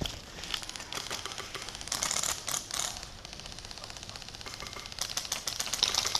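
Airsoft guns firing rapid full-auto bursts: a fast, even clatter of clicks, louder near the end.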